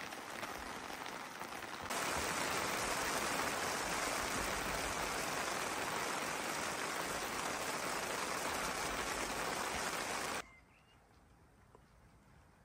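Heavy rain pouring steadily. It grows suddenly louder about two seconds in, then cuts off abruptly near the end, leaving a quiet background with a few faint bird chirps.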